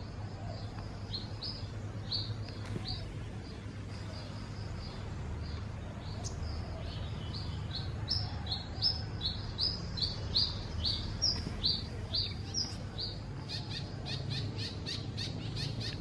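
A small songbird singing a string of short, high chirps, sparse at first, then louder and quicker from about halfway, reaching about three or four notes a second near the end. A steady low hum runs underneath.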